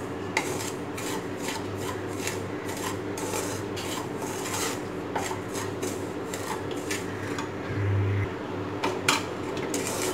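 Wooden spatula scraping and stirring dry semolina in a nonstick pan, a rasping stroke about twice a second, as the semolina dry-roasts.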